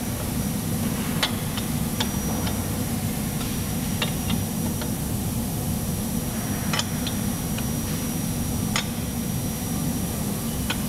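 Metal clinks of a lug wrench on the wheel's lug nuts as they are snugged up by hand, eight or so sharp ticks at irregular intervals. A steady low hum runs underneath.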